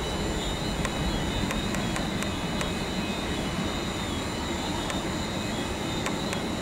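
Airbus A330-300's twin jet engines at high thrust as the airliner climbs out after take-off: a steady rumble with a faint high whine over it.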